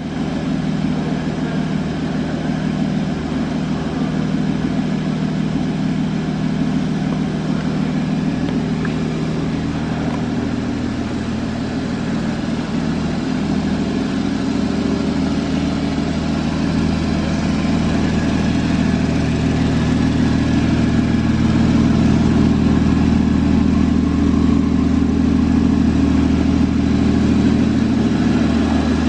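2013 Porsche Boxster S's flat-six engine idling steadily, getting somewhat louder in the second half.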